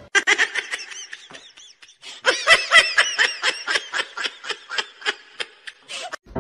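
High-pitched human laughter in a quick run of short 'ha's, about four or five a second: scattered at first, strongest from about two seconds in, then tailing off near the end.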